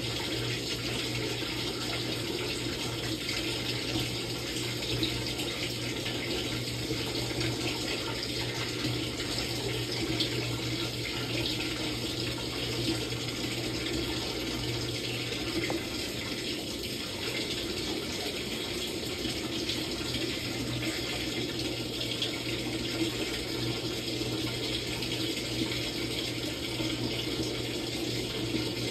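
Samsung top-load washing machine partway through a quick wash cycle: water rushing steadily into or through the tub over a constant low hum.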